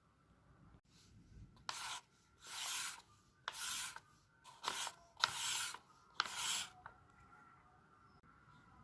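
About six separate rubbing strokes on paper, each about half a second long, coming between about two and seven seconds in.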